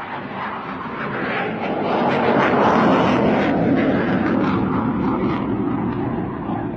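Jet noise from a JF-17 Thunder fighter's single Klimov RD-93 turbofan as it passes low and pulls up. The sound builds to its loudest about two to three seconds in, with a crackling edge, then slowly eases off.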